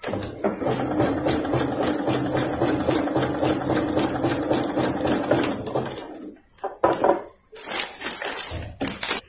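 Usha Janome Dream Maker 120 computerized sewing machine stitching a wide zigzag at its maximum 7 mm stitch width. It runs steadily for about six seconds and then stops. A few short, separate sounds follow near the end.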